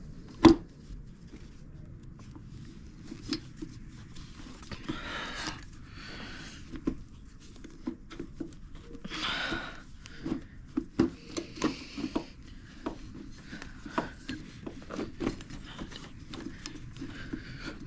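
Hand work on a dirt bike: scattered light clicks and knocks of small parts and tools being handled and fitted, with a sharper knock about half a second in and a few brief rustles.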